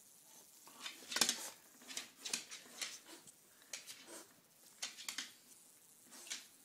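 A dog's claws scratching and scrabbling against a wooden wall panel in several short bursts as it paws at a fly.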